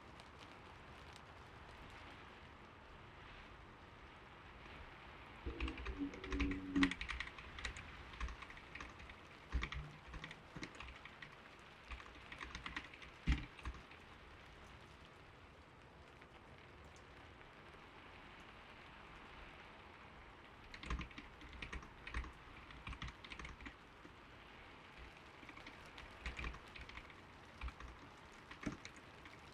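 Typing on a computer keyboard, a "creamy" mechanical-style board, in bursts of keystrokes broken by pauses of several seconds, over a steady bed of gentle rain.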